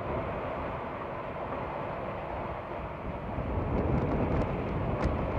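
Wind buffeting the microphone and water rushing along the hull of a Bavaria 55 Cruiser sailing yacht running fast through choppy seas: a steady low rush that builds slightly, with a few faint clicks about four seconds in.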